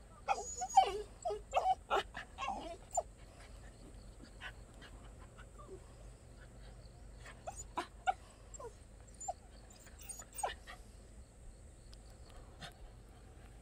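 Jindo dog whining in short, pitched cries, a quick run of them in the first few seconds, then a few quieter scattered whines later.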